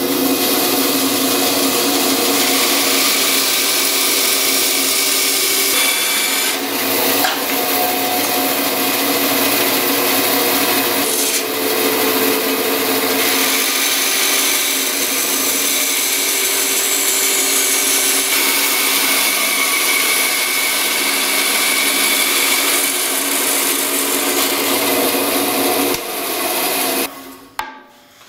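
A bandsaw runs and cuts through a stack of polycarbonate plates, a steady motor whine under a loud cutting hiss. The saw stops about a second before the end.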